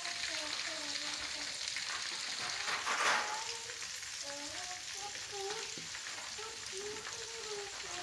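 Chicken pieces deep-frying in a wok of hot oil: steady sizzling and crackling, with a louder spurt of spattering about three seconds in.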